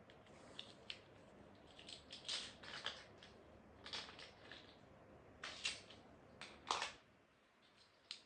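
Plastic Lego bricks being handled and pressed together: faint, scattered clicks and short rattling clusters, the sharpest click a little before the end.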